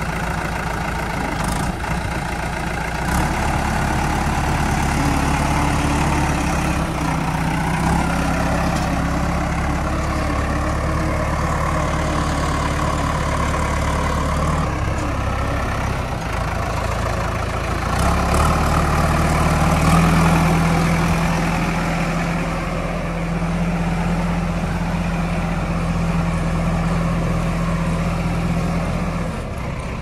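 JCB 3DX backhoe loader's diesel engine running as the machine is driven and its loader worked. The engine speed steps up and down several times and is loudest about twenty seconds in.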